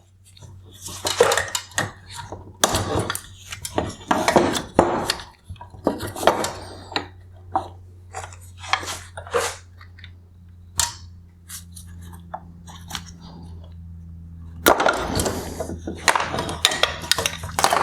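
Hard plastic parts of an LED headlight projector and its housing clicking, knocking and rattling as the last wire harness clips are released and the projector is worked free. A busier stretch of clatter comes near the end.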